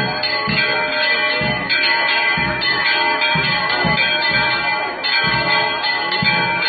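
Church bells ringing a rapid, continuous peal, with strokes falling about twice a second over a lasting ring.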